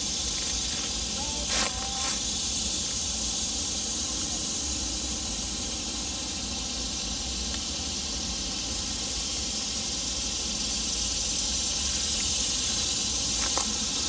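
Steady, high-pitched drone of a chorus of insects, with a few brief clicks about a second and a half in and again near the end.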